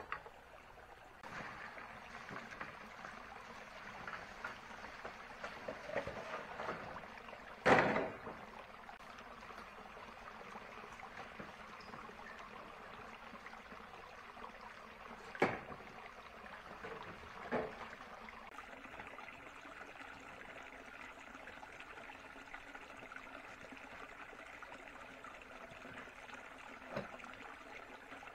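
Steady trickle of running water, with a few sharp knocks, the loudest about eight seconds in.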